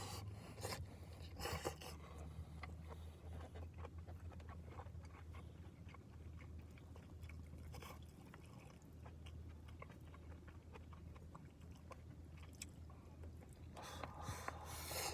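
Close, faint chewing and the small clicks of eating a gyudon bento with chopsticks, over a steady low hum. There are brief louder noises about a second and a half in and again near the end.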